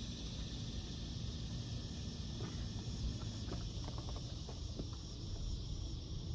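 Outdoor ambience of insects chirring steadily in a high band, over a low rumble, with a few faint clicks in the middle.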